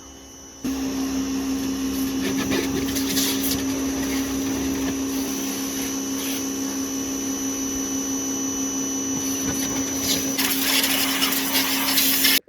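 An electric motor starts about a second in and runs steadily with a constant hum and hiss, then cuts off suddenly at the end.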